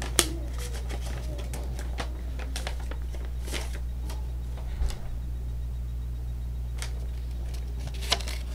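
Steady low electrical hum with scattered light clicks and rustles of things being handled on a desk. A sharper rustle of paper comes near the end as a folded poster is picked up.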